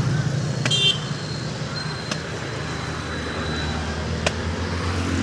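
Three sharp chops of a large knife striking palmyra palm fruit (tadgola, ice apple) to hack it open, under a steady low engine hum.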